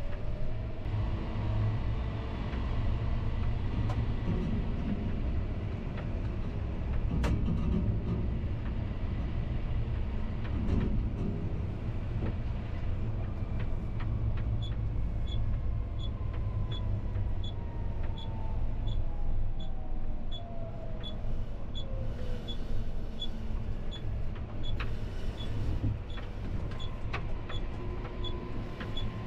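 John Deere tractor driving on the road, heard from inside the cab: a steady low engine and drivetrain rumble, with a whine that slides down in pitch in the middle. A regular faint ticking, about one to two a second, runs through the second half.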